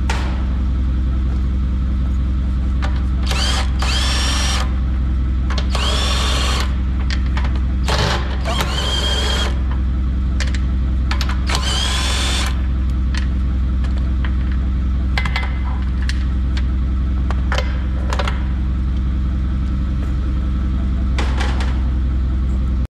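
Cordless 1/2-inch-drive impact wrench spinning bolts out of a tractor's dual wheel in several short runs in the first half, each with a whine that rises as the motor spins up, over the steady rumble of an idling engine. Light metallic clicks follow in the second half.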